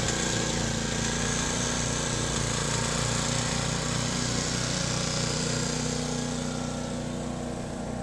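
Gas-engine walk-behind snowblower running steadily while it throws snow, its engine note even throughout and a little fainter near the end.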